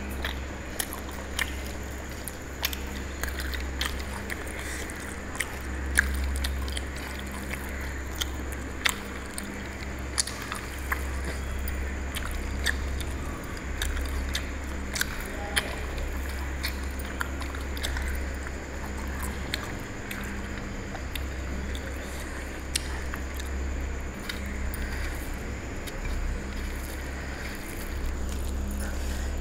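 Eating sounds: a hand squishing and mixing rice into mutton curry on a steel plate, with chewing and many short sharp clicks and taps. A steady low hum runs underneath.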